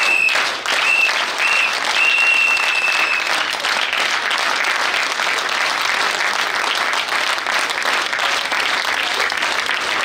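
A crowd of marchers clapping and applauding as they walk. A high steady whistle sounds in several short blasts during the first three seconds.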